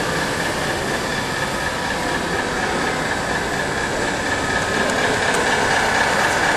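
Radio-controlled model fire truck driving up close, a steady mechanical whine from its drive that grows a little louder as it nears.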